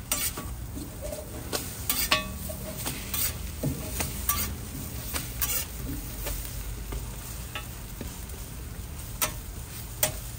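Toast fillings sizzling on a street-stall griddle, with sharp clicks and scrapes of utensils on the hot plate, several in the first few seconds and two more near the end.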